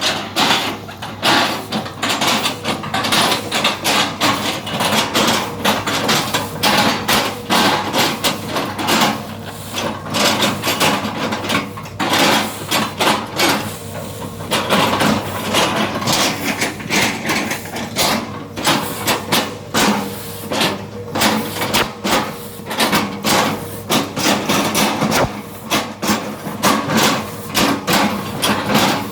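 Excavator bucket repeatedly striking and chopping an oil palm trunk: a rapid, irregular run of sharp knocks and cracks over the steady hum of the running engine.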